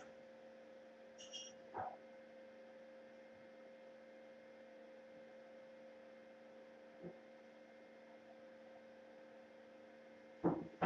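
Steady electrical mains hum with a few short knocks over it, the loudest two close together near the end.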